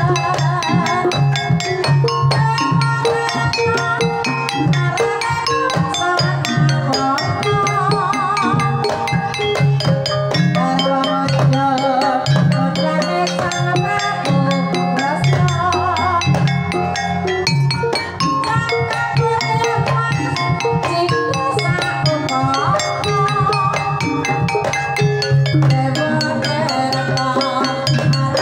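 Javanese gamelan ensemble playing a Banyumasan tayub gending: bronze bonang kettle gongs struck in dense, fast patterns over low sustained gong tones, with a wavering melody line above.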